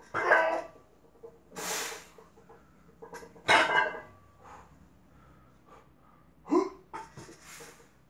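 A man grunting and exhaling forcefully under the strain of heavy hex bar deadlift reps at 140 kg. Several short, separate strained grunts and sharp breaths, with quiet between them.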